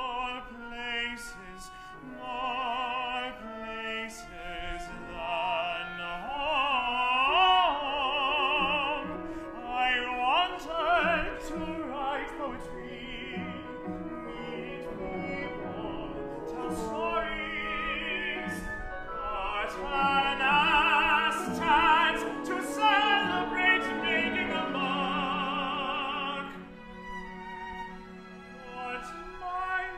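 Opera singing: a solo voice sings with wide vibrato over instrumental accompaniment, getting quieter near the end.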